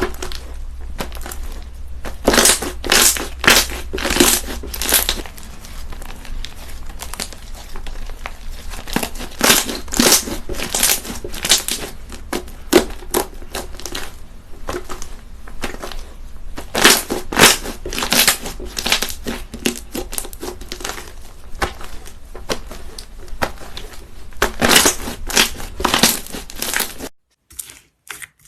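Crunchy slime being squished and pressed, giving dense crackling and popping that swells into several louder bursts of crunching. It cuts off abruptly near the end, where sparser clicks begin.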